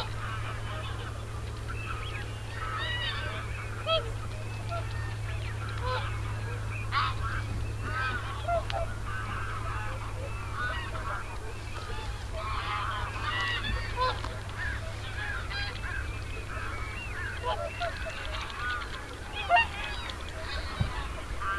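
A large flock of geese calling, with many overlapping honks throughout and a few louder single calls standing out.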